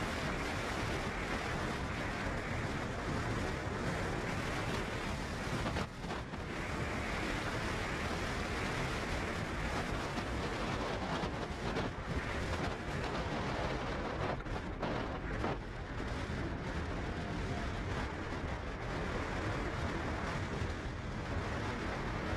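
Steady rushing noise with no distinct events, briefly dipping about six seconds in.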